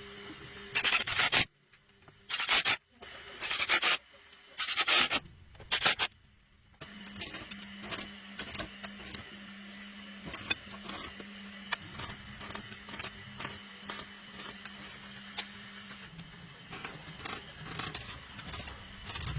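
Rubbing or scraping strokes, four in the first five seconds, then a run of quick light ticks over a low steady hum.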